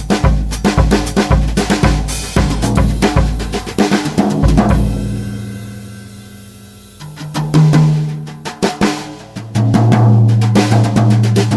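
Pearl Midtown drum kit played with wire brushes: a groove of bass drum and snare, which eases off to quieter playing around the middle. A tom is then struck, and near the end comes a fast run of strokes over a low, ringing drum tone.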